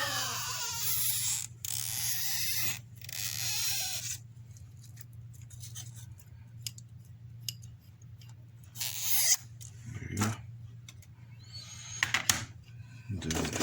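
Scratchy rustling and small clicks of an iPhone 6s battery adhesive strip being peeled up and worked loose with a screwdriver, densest in the first few seconds and then in short bursts, over a low steady hum.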